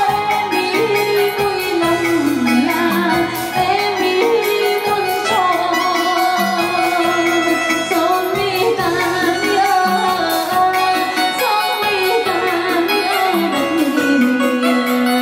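A woman singing a Vietnamese quan họ folk song in a sliding, ornamented melody over backing music with a steady beat.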